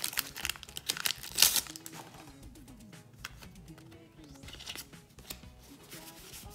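Foil Pokémon booster pack wrapper crinkling loudly as it is torn open during the first second and a half. After that, soft background music with faint handling of the cards.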